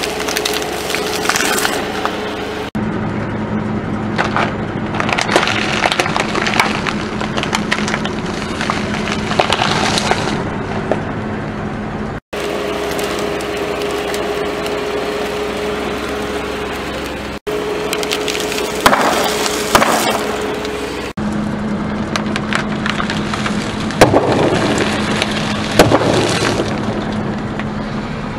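A car tyre rolling slowly over a series of snack packs and toys and crushing them, with dense crackling and crunching over the steady hum of the car's idling engine. Several sharp cracks stand out in the later part.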